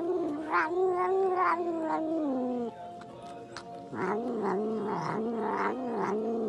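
A domestic cat yowling in two long drawn-out calls: the first held steady, then falling away about two and a half seconds in; the second starting about a second later and wavering up and down. It is the chant-like yowl the owner calls 'namu namu'.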